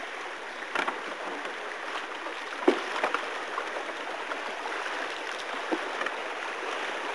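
Fast-flowing river water rushing steadily, with a few brief sharp clicks.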